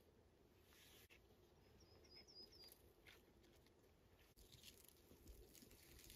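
Near silence: faint rustling and small clicks as a campfire is lit from kindling in a stone fire ring, with a brief run of high chirps about two seconds in.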